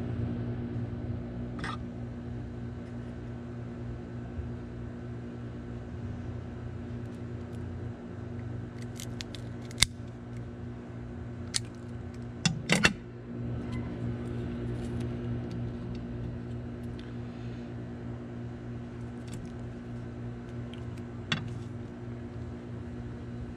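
A cigar being cut and lit: a few sharp clicks and snaps, clustered about ten to thirteen seconds in, over a steady low hum.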